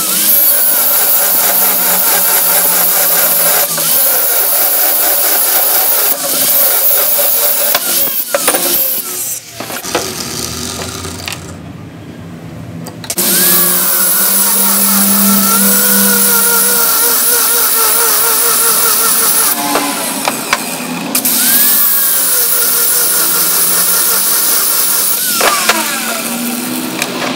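Electric angle grinder with an abrasive cut-off disc cutting through rusty steel bar: motor whine over a harsh grinding hiss, the pitch wavering as the disc bites. About ten seconds in the cutting noise drops away for a few seconds, then the grinder whines back up to speed and keeps cutting.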